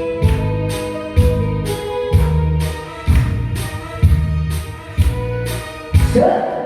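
Korean trot backing music with a steady beat: a heavy bass hit about once a second with lighter, tambourine-like hits between, under held melody notes. A new note swells in near the end.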